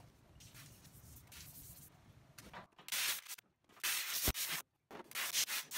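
Abrasive scrub pad rubbing a rifle barrel wet with degreaser to prep its surface. Soft rasping strokes at first, then from about halfway through three louder hissing strokes with short pauses between them.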